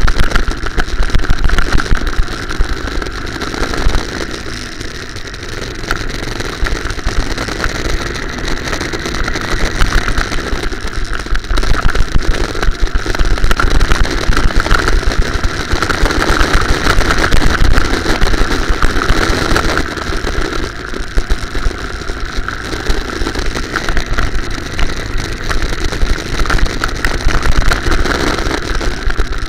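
Go-kart engine running on a lap, heard from a camera mounted on the kart. It eases off about four seconds in, then builds again and is loudest midway, rising and falling with the throttle through the corners.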